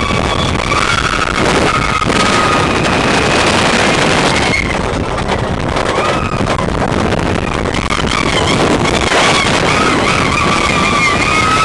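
Steel Dragon 2000 steel roller coaster in motion, heard from aboard the train: steady rushing wind on the microphone over the train's rumble. Riders scream throughout, with more screaming in the last few seconds.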